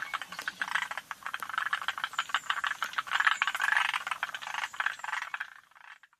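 Forest green tree frogs (Zhangixalus arboreus) calling, several at once: overlapping runs of rapid rattling clicks. The chorus fades out near the end.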